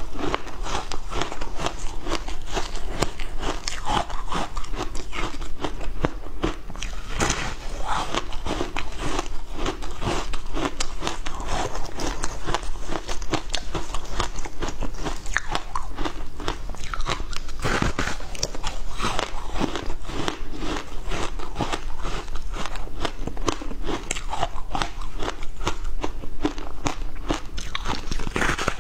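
Close-miked crunching of a block of flavoured ice being bitten and chewed, a dense run of crisp cracks and crackles as the ice breaks between the teeth.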